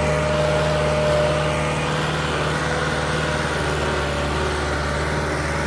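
Modified New Holland 5630 tractor's diesel engine running steadily under load, pulling an implement through dry, sandy soil.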